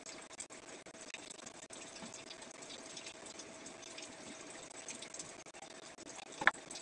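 Faint room noise with a steady hum and scattered light ticks, and one short, sharp click near the end.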